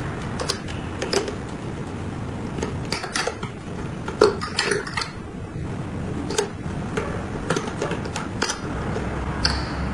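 String winder turning the tuning pegs of an Enya ukulele to slacken its strings: irregular clicks and clatter of the winder on the pegs and tuners, with a little string ringing.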